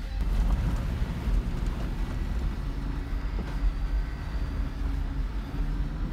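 An off-road 4x4's engine running at low speed over a rough, muddy track, a dense low rumble with irregular jolts and rattles.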